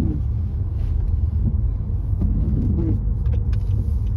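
Steady low rumble of a car's engine and tyres heard from inside the cabin while driving. A few faint ticks come in the last second.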